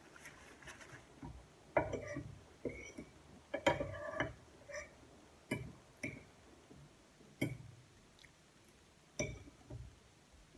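A metal spoon clinking and scraping on a ceramic plate as boiled corn kernels are scooped up, mixed with close chewing sounds. It comes as a string of short, separate sounds every second or so.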